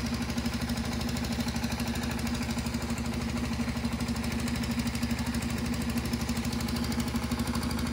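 A motor-driven machine running steadily, with a strong low hum and a fast, even pulsing beat like an engine at idle.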